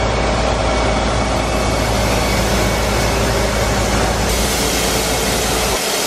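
Diesel engine of a bulk seed semi truck running steadily, with a constant low rumble under an even rushing noise; the rumble drops away near the end.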